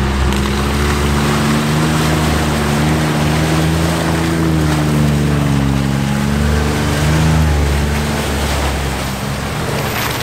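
Off-road vehicle's engine running while driving, its pitch climbing to a peak about halfway through, dropping, then holding steady near the end, over steady wind and road noise.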